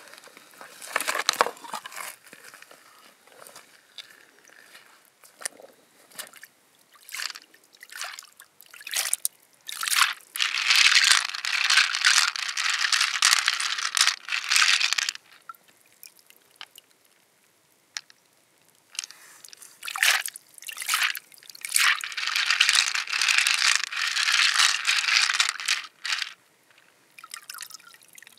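Water sloshing and splashing as hands rinse a heap of pearls in an open freshwater mussel shell held in shallow water. There are two long stretches of splashing, one about ten seconds in and one about nineteen seconds in, with scattered short clicks and drips between them.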